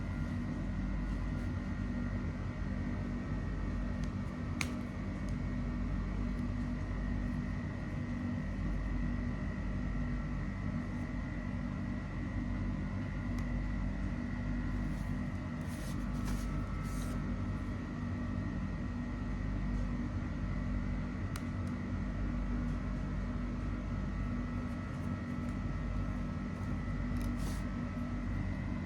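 Steady mechanical hum with a few faint clicks and rustles.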